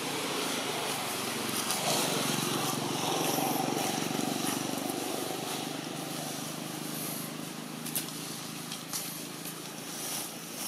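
A motor vehicle's engine running past, swelling about two seconds in and then slowly fading, with a couple of sharp clicks near the end.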